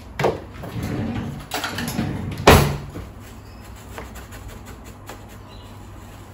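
A glass jar of desiccated coconut being handled, with rustling and knocks against a wooden benchtop; the loudest, sharp knock comes about two and a half seconds in. Then a few faint taps as the coconut is pressed down in the jar with a wooden stick.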